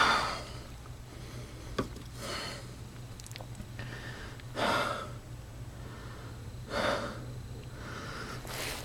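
A man breathing hard while straining at work, one loud breath about every two seconds over a steady low hum, with a sharp click about two seconds in.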